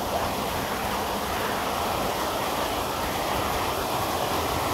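Steady rain falling, an even rushing noise with no breaks.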